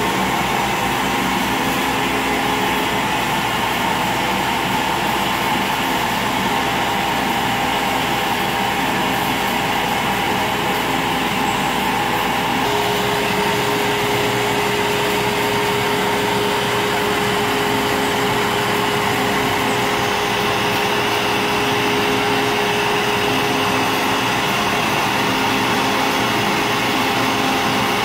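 CNC router spindle cutting an aluminium composite (e-panel) sheet, with the dust-extraction vacuum running through the spindle's dust shoe: a steady machine noise. A steady tone joins in about halfway through.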